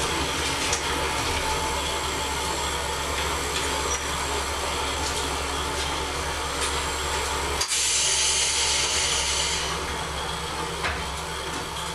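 Kominato Railway KiHa 200 diesel railcar's DMH17C eight-cylinder diesel engine running with a steady low drone under a mechanical hum. About eight seconds in, a loud high hiss lasts about two seconds, and the sound eases off slightly near the end.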